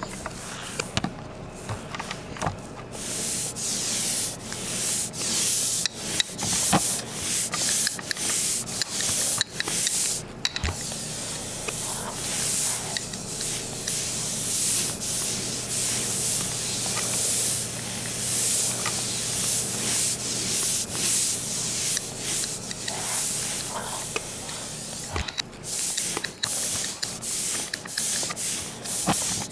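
A painting knife scraping and spreading paint across a board, in a run of irregular, hissy rubbing strokes, several a second.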